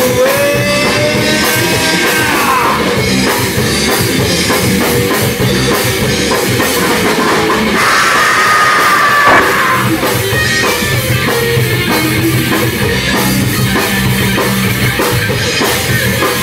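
Live rock band playing an instrumental passage: drum kit and bass under sustained lead notes that waver and bend in pitch, the most prominent bends around the middle.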